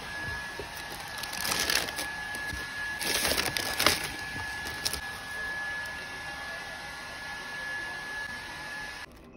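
Tissue paper rustling and crinkling as it is folded back from new sneakers in a cardboard shoebox, loudest in two bursts, about a second and a half in and again around three to four seconds, with lighter handling after. A faint steady high tone runs underneath and stops near the end.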